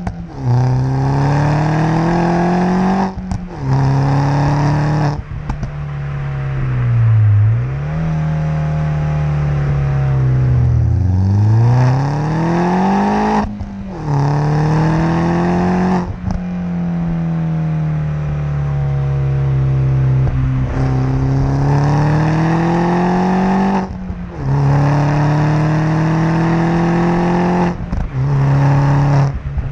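Mini Cooper S R56's turbocharged 1.6-litre four-cylinder heard at the tailpipes of its Milltek Sport exhaust while driving. The note climbs under acceleration and drops sharply with a brief break at each of several gear changes. Twice the revs sink smoothly and build again.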